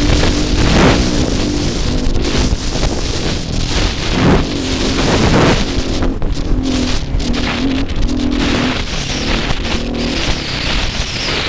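KTM dirt bike engine running under throttle while climbing a soft sand track, its note coming and going with the throttle, mixed with a steady rush of wind and sand noise on the helmet-mounted microphone.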